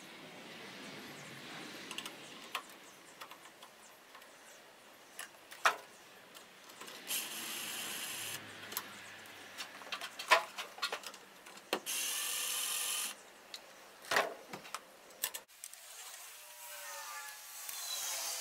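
Handling taps and clicks of work on a metal electrical box, with two bursts of a high hiss, each a little over a second long, about seven and twelve seconds in.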